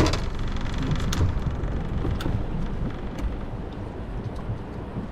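Wind rumbling on the microphone over a boat on choppy water, with a few sharp knocks, the loudest right at the start.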